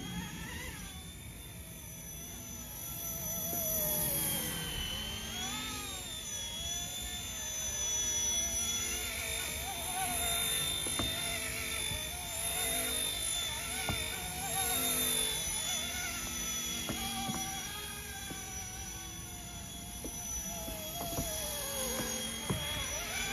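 Small electric RC scale helicopter (RC ERA C189) in flight: a motor and rotor whine whose pitch rises and falls as it speeds and manoeuvres, growing louder and fainter as it passes.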